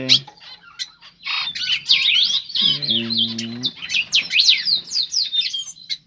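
Many small aviary birds, Java sparrows among them, chirping and calling over one another in quick high notes. About three seconds in, a man's low voice holds a drawn-out hesitating sound for about a second.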